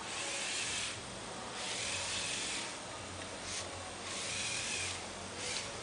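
LEGO Technic trial truck's electric motors and gear drivetrain whirring in short stop-start bursts of about a second each, four or so in a row, as the truck crawls over a rock.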